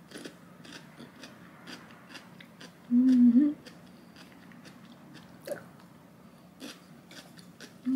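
Close-up crunching and chewing of crisp daikon radish cubes, a run of short crisp crunches through the whole stretch. About three seconds in comes a brief, loud hummed 'mm' with the mouth closed.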